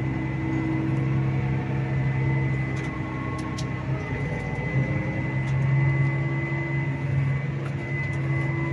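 Farm vehicle's diesel engine running steadily while driving, with a thin steady high whine above the engine hum. The hum eases briefly about halfway through, then comes back.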